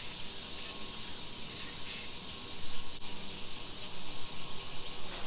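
A steady high hiss with a rubbing, rustling noise that grows louder and more uneven about halfway through.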